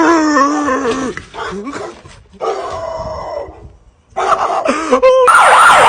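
A dog howling in several long, wavering calls, the last and loudest beginning about five seconds in, with a fast wobble in pitch.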